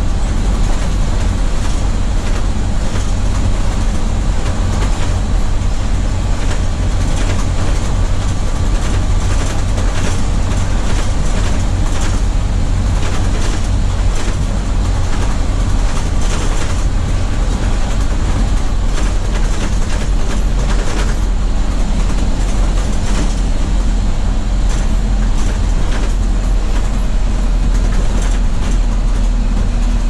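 Inside the cab of a 1982 Chevy Blue Bird school bus at steady cruising speed: a loud, unbroken low drone of engine and road noise, with many small rattles and clicks on top.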